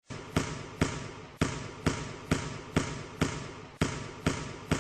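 A basketball dribbled steadily on a hard court, about two bounces a second, each bounce echoing in a large hall.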